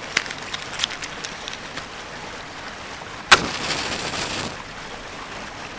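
Running water with scattered drips and small splashes, and one sharp loud splash or knock a little past three seconds in, followed by about a second of louder rushing water.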